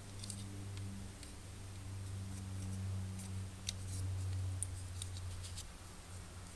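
Scattered light clicks and taps from stiff plastic model-kit parts being handled as a Master Grade Gundam hand is worked onto the grip peg of a bazooka. Under them runs a steady low electrical hum.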